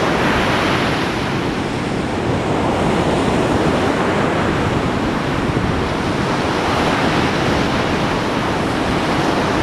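Steady rush of beach wind and sea surf, with wind buffeting the microphone.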